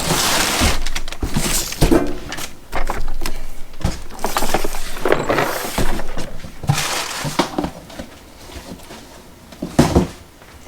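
Rustling of packaging and light clunks as a boxed socket bit set is handled, in irregular bursts that quieten near the end.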